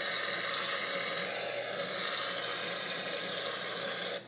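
Aerosol shaving cream can dispensing foam in one long, steady hiss that cuts off sharply at the end.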